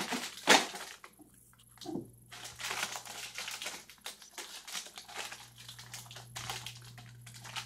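Plastic crisp packet crinkling and crackling as it is handled and torn open, with one sharp crackle about half a second in.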